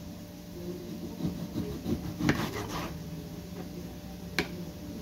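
Knife sawing with force through a pork picanha, with several rasping strokes between about one and three seconds in, then one sharp knock about four seconds in.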